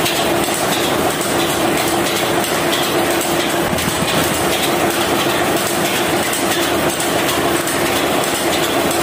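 Toy concrete mixer's small electric motor running steadily with a constant hum, the turning drum rattling with the wet cement mix inside.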